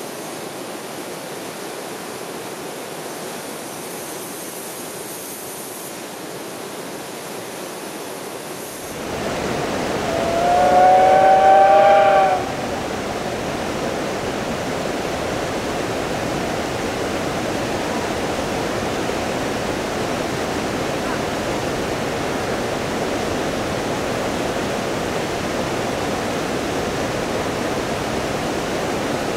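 A steam locomotive whistle blows once, for about two seconds, a little after ten seconds in, as a chord of pitched tones that rises slightly then sags before cutting off. Before it there is a steady rushing noise like flowing river water. About nine seconds in this gives way suddenly to a louder, deeper rumbling noise, which continues after the whistle.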